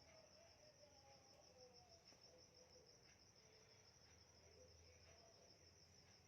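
Near silence with faint cricket chirping: a steady, rapid, evenly pulsed trill.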